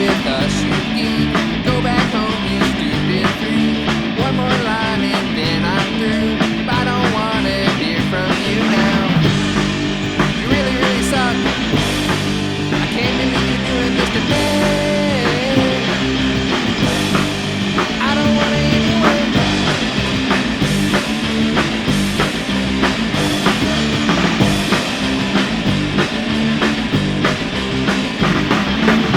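Rock band playing a song with guitar over a steady beat.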